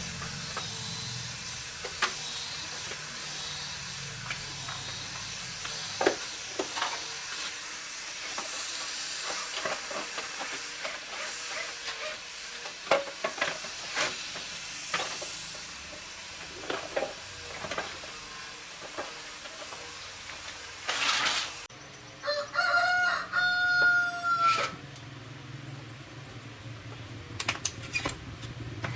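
Scattered light clicks and knocks, then a short hiss, followed by a rooster crowing once for about two seconds.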